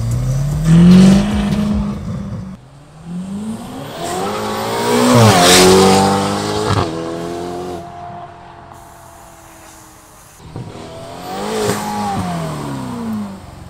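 Ferrari GTC4 Lusso T's twin-turbo V8 through an IPE exhaust, accelerating hard: the revs climb to a loud peak about a second in and again about five seconds in, then drop away to a fading drone, and climb once more as the car drives past near the end.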